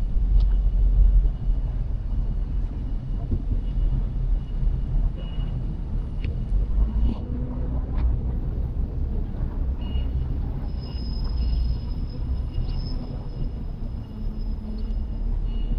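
Outdoor street ambience: a steady low rumble of vehicle traffic, with a few short clicks and faint high steady tones.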